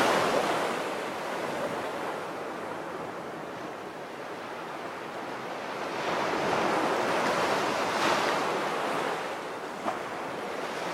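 Sea surf washing in, a steady rush of waves that ebbs and swells.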